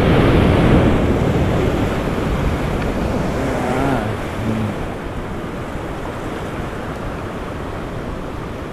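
Sea surf breaking and washing over a rocky shore. It is loudest in the first couple of seconds, then settles to a steady wash.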